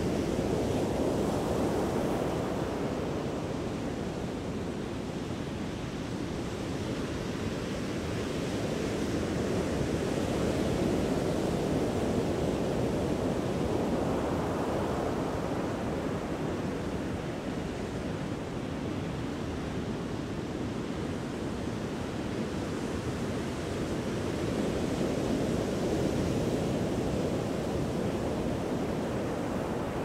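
Ocean surf: a continuous rush of breaking waves that swells and eases in slow surges several seconds long, louder near the start, in the middle and again near the end.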